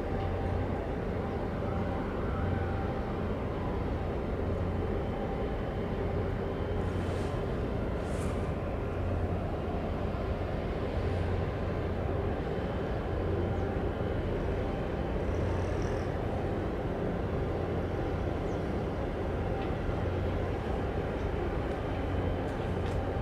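Steady low rumble of a passing container ship's engine and propulsion, unchanging throughout.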